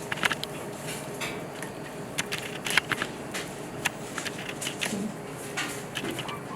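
Chicken gizzard's tough inner lining being peeled away by hand, giving irregular small wet crackles and clicks.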